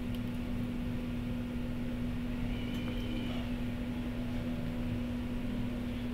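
A steady low hum with one constant tone and an even hiss beneath it, unchanging throughout, like an appliance or fan running or electrical noise on the recording.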